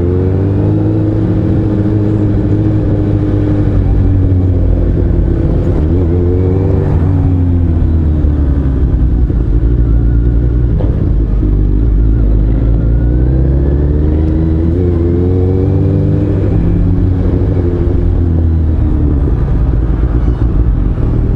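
Engine noise riding on a motorcycle close behind a Mercedes-AMG C63 in slow traffic: a steady low drone, with engine pitch rising and falling several times as the vehicles speed up and slow down.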